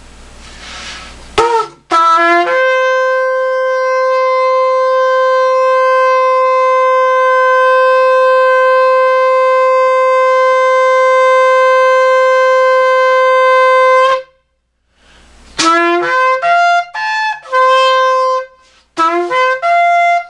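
A long 42-inch horn shofar, its mouthpiece recut and the horn tuned, is blown. After a breathy start, a short rising note opens into one long steady blast of about twelve seconds that cuts off sharply. After a brief pause comes a run of short notes jumping up and down between several pitches.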